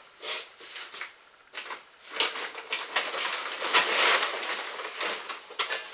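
Feed sacks being handled and shifted, a dense rustling and crinkling of bag material that starts about two seconds in, after a few light knocks.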